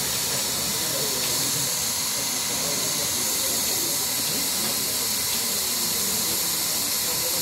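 A loud, steady hiss, strongest in the upper range, with faint indistinct voices underneath.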